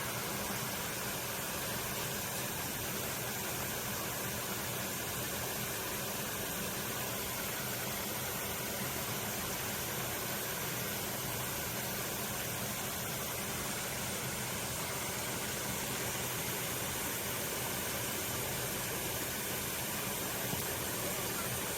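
Steady rushing water of a mountain stream, an even hiss that does not change.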